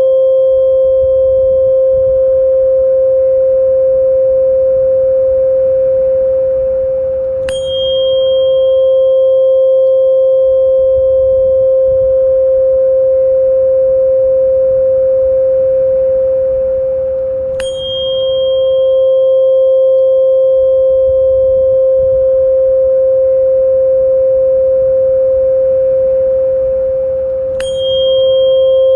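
Steady pure tone of a little over 500 Hz, played as a tinnitus-relief sound-therapy frequency, with fainter higher overtones above it. Three times, about ten seconds apart, a short click briefly brightens the higher tones.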